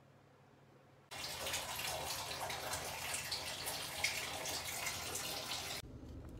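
Water running hard from a bathroom tap or shower, a dense steady splashing hiss that starts suddenly about a second in and cuts off sharply near the end.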